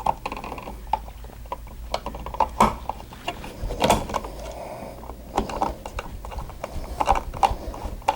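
Irregular small clicks and scrapes of a wall switch's metal mounting strap and screw being worked into a plastic switch box by hand, as the screw is found and caught in its hole.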